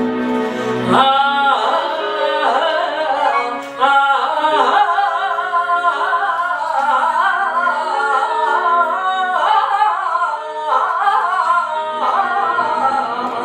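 Woman singing solo into a microphone with a wide vibrato, holding long wavering notes in phrases of a few seconds.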